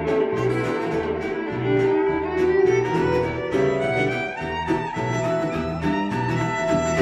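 Live band playing the instrumental close of a song: a violin carries the melody over a bass line that pulses about every half second, with rhythmic strummed accompaniment.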